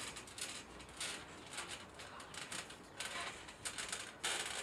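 Faint scattered scuffing and rustling in short bursts as wrestlers move about on a trampoline mat.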